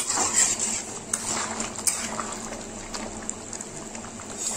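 Chickpea curry gravy simmering in a wide pan, bubbling with a few sharp pops here and there.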